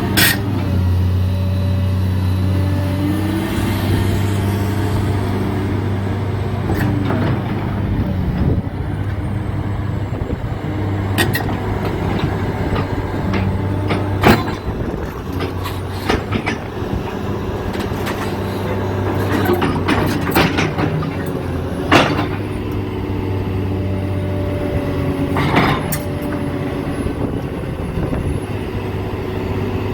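Caterpillar 330DL crawler excavator's diesel engine running steadily, with tones gliding up and down in pitch as the machine works. Sharp knocks break through about seven times.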